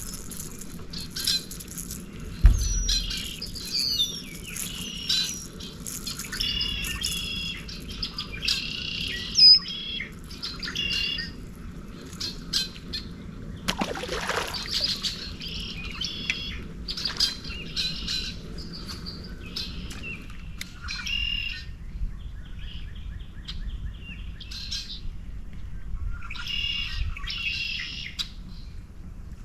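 Several birds chirping and singing in short repeated phrases, with a low thump about two and a half seconds in and a brief rush of noise about fourteen seconds in.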